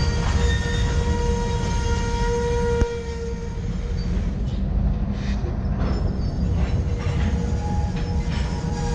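Slow freight train of covered hopper cars rolling past with a steady low rumble. Over it sits a steady high-pitched tone that fades out midway and returns near the end, and there is a single sharp knock about three seconds in.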